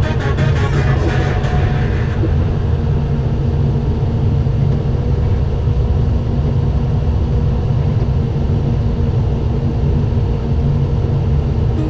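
Diesel engine of a Doosan 160 wheeled excavator running steadily, heard from inside the cab as a steady low drone. Background music fades out about two seconds in.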